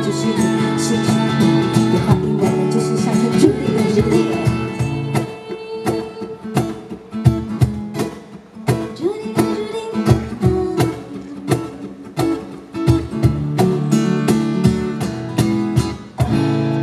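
Live acoustic guitar accompaniment playing the song's instrumental ending: sustained strummed chords with many sharp strokes. A sung note trails off in the first couple of seconds.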